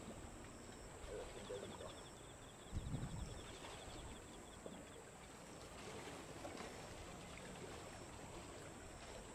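Faint open-air ambience: a steady low rumble and hiss, with a brief louder low rumble about three seconds in and a faint, fast, even ticking over the first few seconds.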